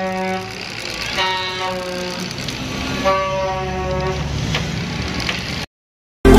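Vehicle horns honking in street traffic: a honk trails off at the start and two more long steady honks follow about a second and three seconds in, over a bed of traffic noise. The sound cuts out near the end.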